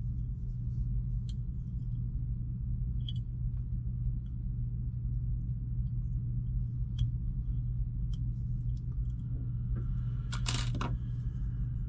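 Light metallic ticks from a whip-finish tool working thread around a fly's head in a vise, over a steady low hum. A louder, brief clatter comes about ten seconds in.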